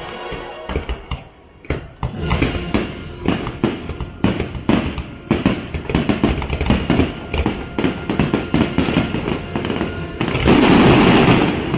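Aerial fireworks shells bursting in quick succession, many sharp bangs a second, with show music underneath. About ten seconds in, the bursts merge into a dense, loud crackling barrage.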